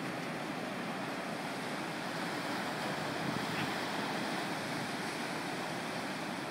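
Ocean surf: a steady wash of waves breaking across the beach.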